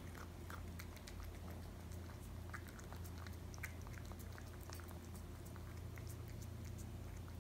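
Cat chewing crunchy treats from a ceramic dish: faint, irregular little crunches and clicks, over a steady low hum.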